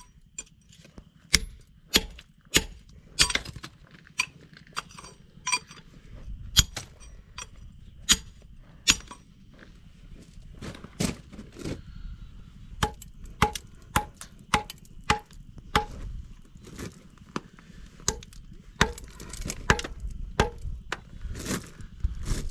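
Hammering on wood: dozens of sharp, irregular blows, some in quick runs and some with short pauses between, a few with a brief metallic ring.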